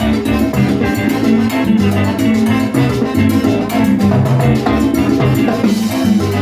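Salsa band playing: a steady bass line and pitched instruments over a continuous percussion rhythm.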